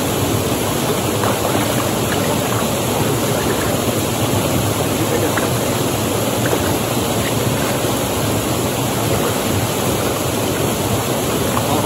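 Stream water running steadily: an even, unbroken rushing noise.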